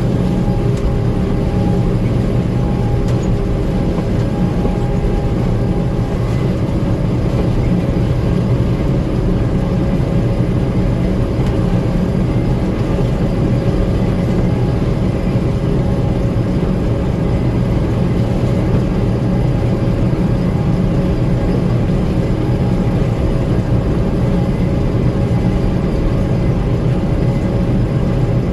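Gleaner M2 combine running steadily while harvesting corn: a constant loud mechanical drone of engine and threshing machinery, with a faint steady whine over it.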